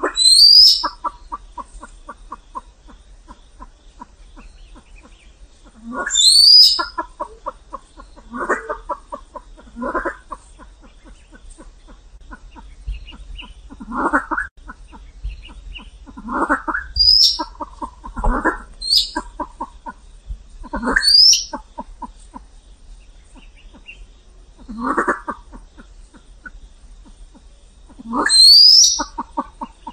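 Silver pheasant calling: short, sharp, rising squeals every few seconds, between fast runs of lower clucks.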